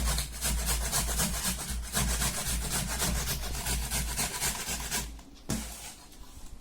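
Cabbage being finely grated on a hand grater: quick rhythmic rasping strokes that stop about five seconds in.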